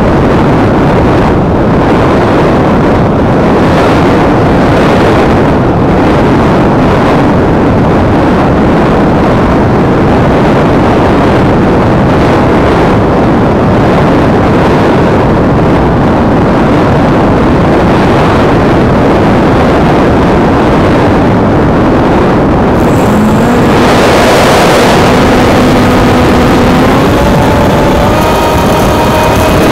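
Loud wind noise from the airflow over a camera riding on an EasyStar RC model plane in flight. About three-quarters of the way through, the plane's electric motor and propeller whine comes in and rises in pitch in steps as the throttle is opened.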